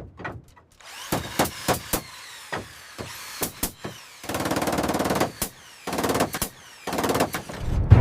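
Construction work noise: scattered knocks and clicks, then three bursts of rapid, evenly spaced impacts from a power tool such as a hammer drill or impact driver.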